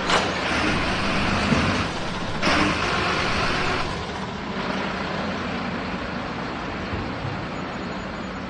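Garbage truck with its engine running. There is a sharp knock at the start, then two hissing bursts of about a second and a half each, after which the engine runs on steadily and more quietly.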